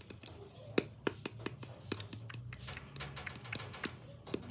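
Handling noise from hands: an irregular run of about a dozen light, sharp taps and clicks, with the loudest near the start.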